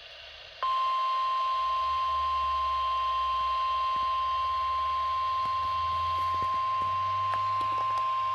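NOAA Weather Radio warning alarm tone: one steady 1050 Hz beep starting just under a second in, the signal that a new warning message is about to be broadcast.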